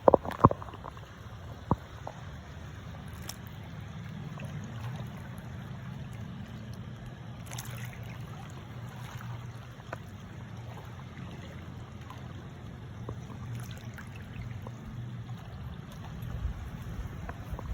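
A boat's engine running steadily with a low drone. A few sharp knocks come in the first two seconds.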